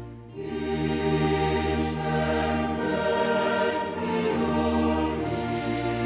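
Background choral music with long held chords. It dips briefly just after the start, then a new chord comes in.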